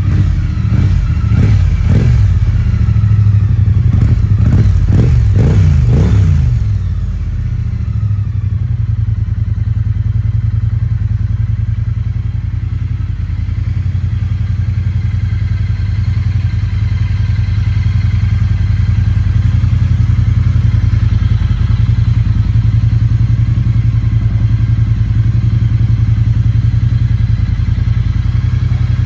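Triumph Bonneville T100's 900 cc parallel-twin engine running through an Arrow Pro Racing slip-on exhaust with a warm note. A handful of quick throttle blips come in the first six seconds or so, then it settles to a steady idle.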